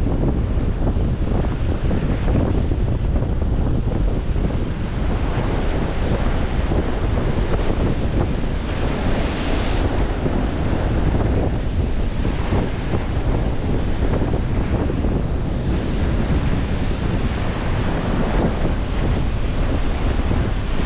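Ocean surf breaking and washing in at a river mouth on a spring high tide, under heavy wind buffeting the microphone. A louder, hissier wash of a breaking wave comes a little before halfway.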